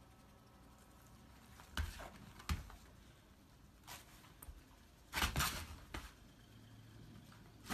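Short, noisy puffs of breath from close-range sniffing and huffing between a dog and a hedgehog curled into a ball, some with a soft low thump, over a faint steady hum. The loudest cluster comes about five seconds in.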